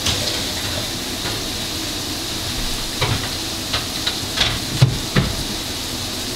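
Food sizzling steadily in a pan while being stirred, with several sharp knocks of the utensil against the pan between about three and five seconds in.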